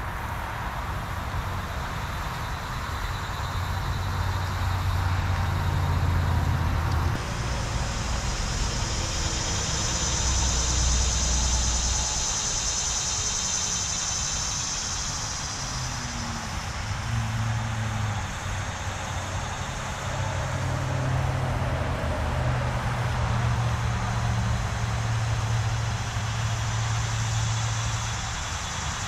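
Steady low rumble of road traffic, its pitch shifting as vehicles pass, with a high steady hiss from about seven to sixteen seconds in.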